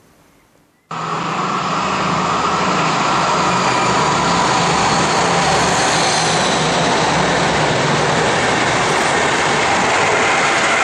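Locomotive-hauled regional passenger train passing at speed. A loud, steady rush of wheels on rail starts abruptly about a second in, with a low hum under it that fades away over the last few seconds.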